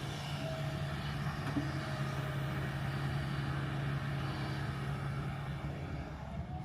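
Kobelco 220 hydraulic excavator's diesel engine running steadily under work, a constant low hum whose strongest note eases slightly near the end.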